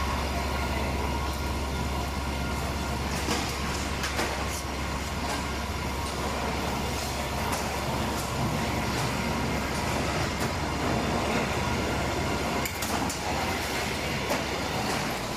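CHANG-I veneer core builder line running: a steady mechanical rumble over a constant low hum, with a few sharp clacks.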